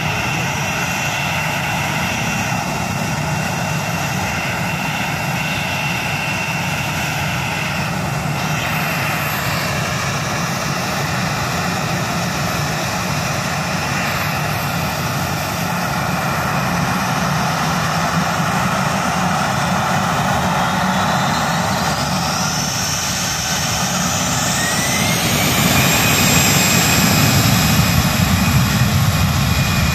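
Airbus A320 jet airliner's twin engines running steadily on the runway, then spooling up with a rising whine about two-thirds of the way through as takeoff thrust is set and the takeoff roll begins; the sound grows louder toward the end.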